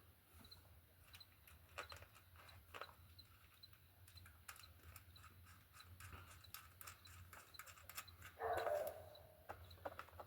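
Faint clicks and rubbing of a bicycle tire being worked onto its rim by hand, with a short whine about eight and a half seconds in.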